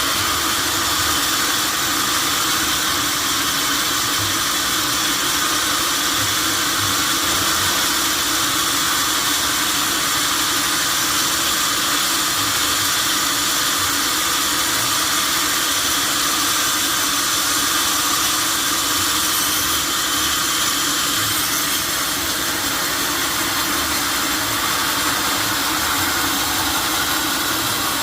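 Sawmill saw and its machinery running on an oak log, a steady, even noise with no break.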